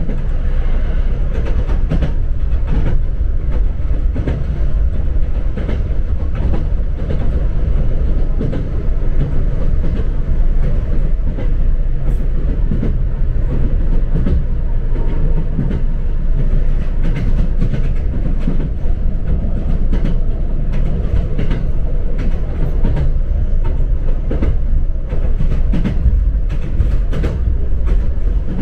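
A train running, heard from inside the carriage: a steady low rumble of wheels on rails, with frequent clicks as the wheels pass over rail joints.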